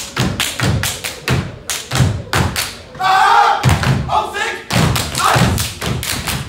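Step team stepping: rhythmic foot stomps on the stage, about three a second. A loud shout of voices breaks in about halfway through.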